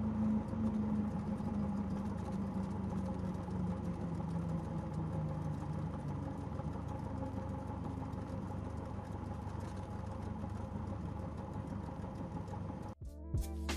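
Cessna 172S's four-cylinder Lycoming engine idling steadily as the plane taxis, heard from inside the cabin, its low hum sinking slightly in pitch over the first few seconds. Near the end the engine sound cuts off abruptly and music begins.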